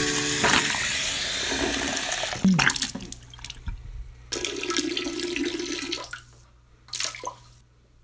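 Water running and splashing into a bathroom sink, a dense rush that stops about two and a half seconds in, then a second shorter spell of water from about four to six seconds in.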